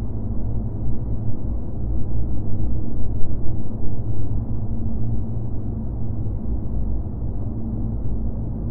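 Empty-city ambience: a steady, low rumbling drone with a faint hum running under it and nothing standing out from it.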